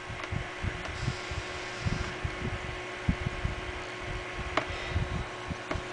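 Steady fan-like hum with a faint constant tone, broken by irregular soft low bumps and a couple of small clicks.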